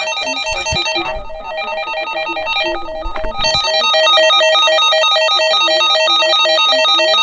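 Fast, repetitive electronic melody of short plucked-sounding notes, like a ringtone tune; it thins out briefly about one and three seconds in, then runs fuller and steady.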